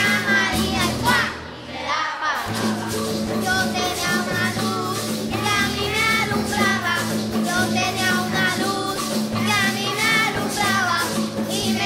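Children's choir singing a Christmas song with live band accompaniment, with a short lull about two seconds in.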